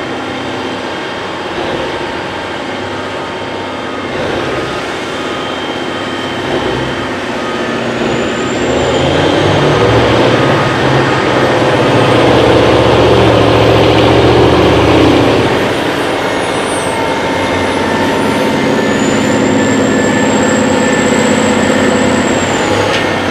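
Large diesel mining machinery, a wheel loader working with a haul truck, running steadily; the engine note swells louder and deeper through the middle, as under load, with a faint high whine that rises and falls twice.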